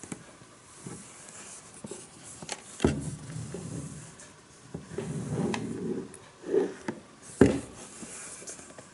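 Handling noise from a VHS tape in its clear plastic cover being turned over in the hands: plastic rubbing and rustling, with two sharp knocks, one about three seconds in and one near the end.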